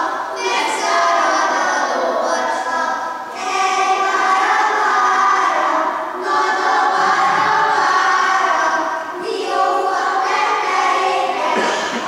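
Children singing together in unison, the song moving in phrases about three seconds long with brief breaks between them.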